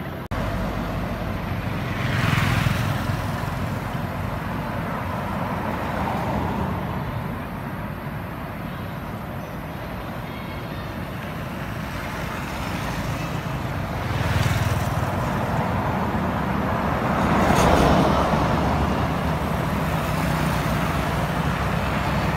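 Road traffic: a steady rumble of vehicles on the road, with vehicles passing at about two seconds in, around fourteen seconds and loudest around seventeen to eighteen seconds.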